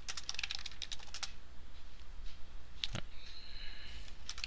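Typing on a computer keyboard: a quick run of keystrokes typing out a short command, then a single firmer keystroke about three seconds in as the Enter key is pressed.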